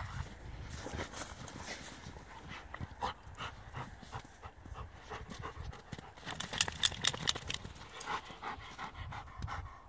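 A dog panting while it rolls and rubs its back in snow, the snow crunching and rustling under it, with a run of louder crisp crunches about two-thirds of the way through as it walks through the snow.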